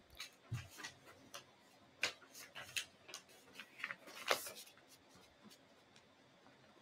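Faint, scattered clicks and light taps of watercolor materials being handled on the table, the clearest a little over two seconds in and about four and a half seconds in.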